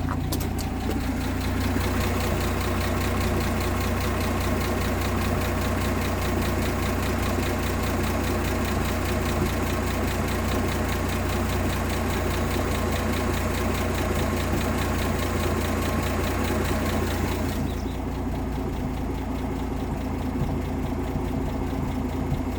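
1958 AMC Rambler Super's engine idling steadily on a Weber carburettor while its idle is turned down for the best steady vacuum reading. A hiss with fast, fine ticking lies over the idle and stops suddenly near the end.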